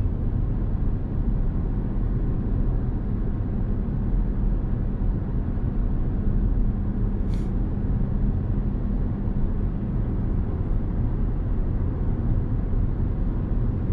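Steady low rumble of road and drivetrain noise inside the cabin of a Toyota Corolla Touring cruising on adaptive cruise control.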